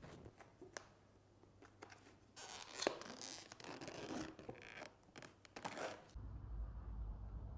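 Clear plastic film crinkling and crackling as it is peeled off a black plastic takeaway thali tray, starting with a few sharp clicks and growing busier. It stops about six seconds in, giving way to a low steady hum.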